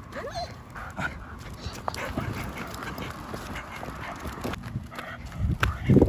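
Dog whining in short rising-and-falling whimpers near the start, with a louder bark near the end.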